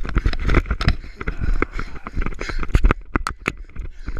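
Branches and undergrowth rustling, scraping and snapping against a body-worn camera as the wearer pushes through dense brush, with a run of sharp clicks and snaps in the second half.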